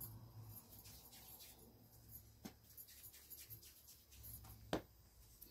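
Near silence with faint handling sounds as hands shape dough balls and reach into a metal bowl. There are a few light clicks, the sharpest about three-quarters of the way through.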